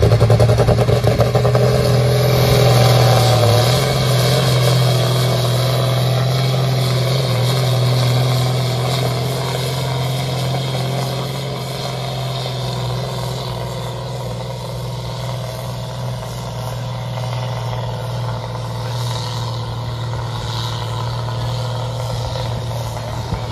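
Pulling tractor's diesel engine at full throttle under heavy load, dragging a weight-transfer sled down the track: a loud, steady engine note that slowly fades as the tractor moves away.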